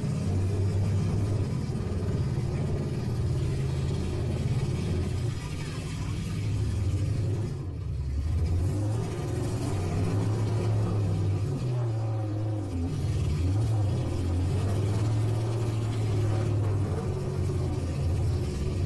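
Engines of stock half-ton demolition derby pickup trucks running and revving, a steady low rumble that rises and falls in pitch.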